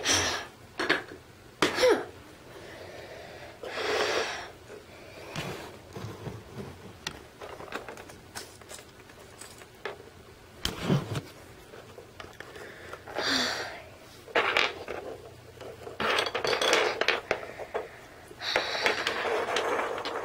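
Small plastic toys and toy dishes being handled and set down on a wooden floor: scattered clicks and clatters with a few longer rustling scrapes.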